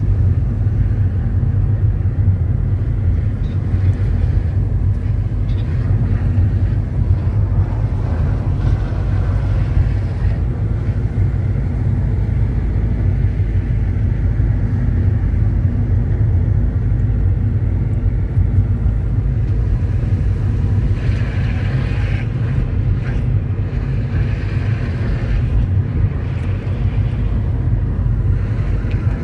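Steady low rumble of a vehicle running, with a brief rise in hiss partway through.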